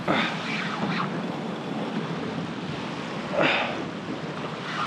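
Sea water washing and splashing around a fishing kayak, with short splashes about a quarter-second in and again about three and a half seconds in.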